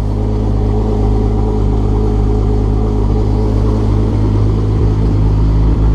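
Volkswagen Corrado's turbocharged VR6 engine idling steadily just after a cold start. The idle is smooth, running a little rich while still cold.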